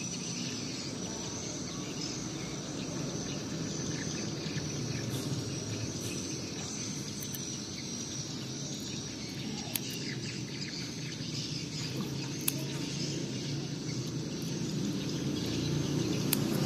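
Steady outdoor background with birds and insects chirping faintly, broken by a few small, spaced clicks of scissors snipping through fresh red chili peppers.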